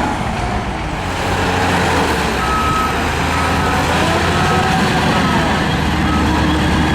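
Heavy diesel earthmoving machinery running steadily, with a reversing alarm beeping at an even pace, the beeps coming back about a third of the way in.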